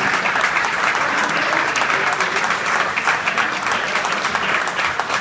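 Audience applauding steadily: a dense, even stream of many people clapping.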